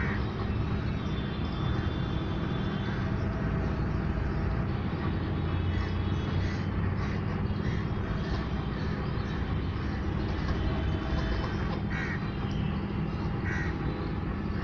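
A steady low rumble of background noise, with a few short honking calls from white domestic geese on the water, twice in quick succession near the end.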